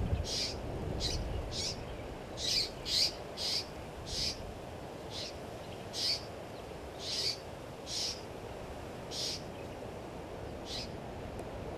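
A bird calling a series of short, sharp, high notes, several a second at first and then about one a second, over a low background rumble.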